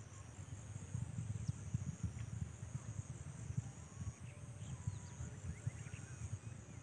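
Riverside ambience: insects trilling steadily and high, a few short bird chirps, and wind rumbling unevenly on the microphone.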